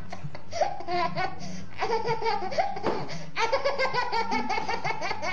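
A baby laughing in long runs of quick, breathy giggles, several laughs in a row.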